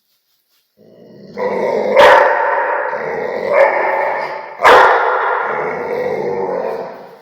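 Rottweiler barking and growling in one continuous outburst, with two loud, sharp barks about two and four and a half seconds in.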